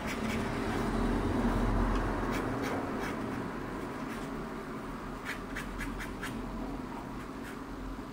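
A pen drawing on paper: the tip scratching across the sheet in short strokes, with quick light taps as it touches down, several in a row about five to six seconds in.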